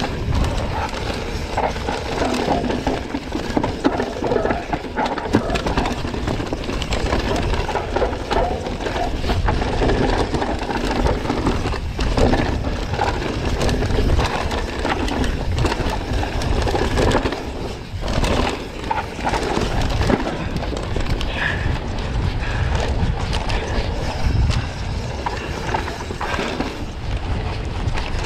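Full-suspension mountain bike descending a dry, rocky dirt trail at race pace. Wind rushes over the camera microphone, and tyres crunching on dirt and stones mix with the rattle and knock of the bike over bumps.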